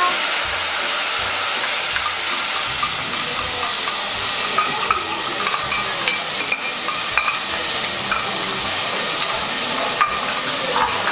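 Wet ground onion-tomato masala paste sizzling steadily in hot oil in a pressure cooker as it is stirred, with a metal spoon ticking against the pot now and then.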